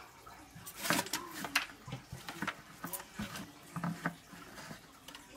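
Rooted Chinese elm cuttings being handled over a disposable aluminium foil pan: irregular light taps, crinkles and rustles as the roots brush the foil and crumbs of soil drop onto it, the loudest about a second in.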